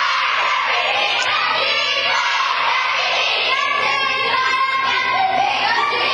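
Crowd of girls singing and shouting together, loud and unbroken, with cheering mixed in.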